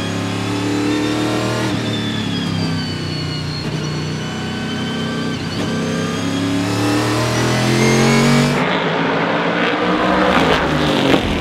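Panoz Esperante GTR-1's 6-litre V8 race engine heard from the cockpit at speed, its pitch rising and falling with the gear changes. Near the end the sound changes abruptly to a noisier, duller one as the car is heard from outside.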